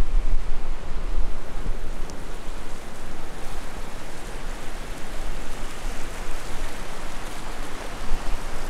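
Steady rushing of a shallow river flowing over rocks, with a gust of wind buffeting the microphone at the start.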